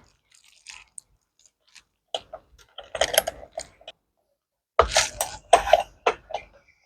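A series of short, sharp clicks and knocks from hand work on the moped's clutch parts, coming in two clusters: a few about two to four seconds in, then a quicker run near the end.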